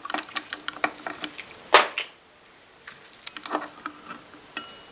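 Clinks and clacks of small metal parts being handled at a Puch Maxi engine's ignition rotor, its retaining nut just loosened: scattered light clicks, a sharper clack a little under two seconds in, and a brief metallic ring near the end.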